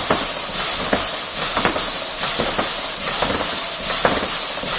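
Fan flywheel of a Thorax Trainer double-poling ergometer spinning fast with a steady rushing whoosh, surging with each hard pole pull at a bit more than one stroke a second.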